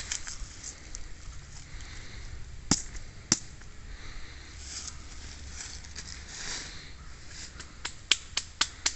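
Rustling and crunching in dry fallen leaves as a log is handled and set down, with two sharp knocks about three seconds in and a quick run of sharp crunching steps near the end.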